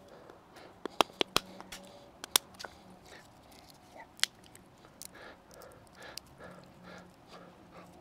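Walnut shell being cracked open with a carved wooden stick: a quick series of sharp cracks and snaps about a second in, one more crack a little later, then softer crackling as shell fragments are broken away from the kernel by hand.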